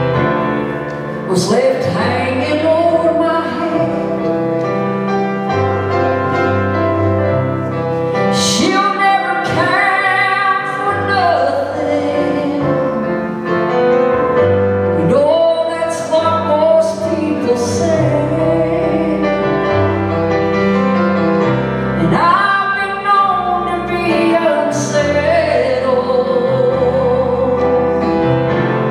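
Gospel song: a singer holds long, wavering notes over steady instrumental accompaniment.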